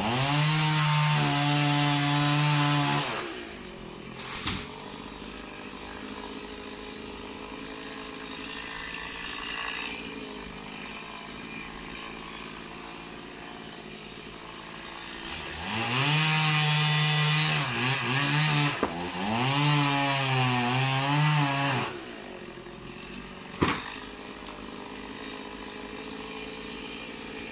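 Two-stroke chainsaw cutting into the crown of a coconut palm: it revs up and cuts for about three seconds at the start, runs lower and steady for a while, then cuts again at high revs with a wavering pitch for about six seconds in the middle. A single sharp knock comes near the end.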